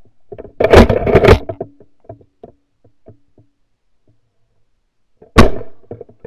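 Pump-action .410 shotgun: the slide is worked with loud metallic clacks about a second in, followed by a few light clicks. One shot is fired about five seconds in, and the action starts to cycle again at the very end.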